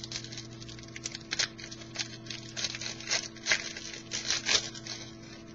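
Trading cards and their packaging being handled: a string of irregular crinkles, flicks and rustles, thickest in the second half, over a steady electrical hum.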